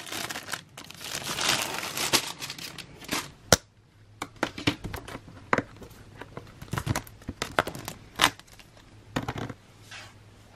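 Plastic packaging crinkling as a MOSISO hard plastic laptop shell is unwrapped. About three and a half seconds in this gives way to a string of sharp clicks and knocks as the hard plastic shell pieces are handled against each other and the laptop.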